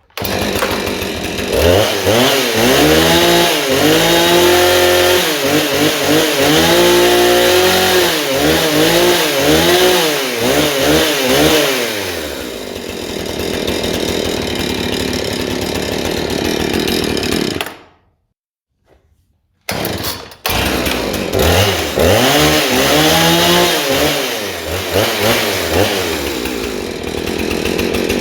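Gasoline Stihl chainsaw running, its engine revved up and down again and again, then held steadier. Past the middle it cuts out for about two seconds, then comes back and revs up and down again.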